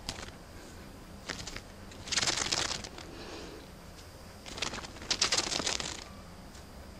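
A sparrow scrabbling and wriggling against the fabric of a pair of shorts, much like a dust bath: several bursts of scratchy cloth rustling. The longest come about two seconds in and again from about four and a half to six seconds.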